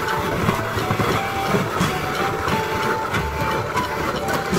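Hand-cranked metal meat grinder crunching foil-wrapped chocolate coins, a dense run of clicks and cracks as the crank turns.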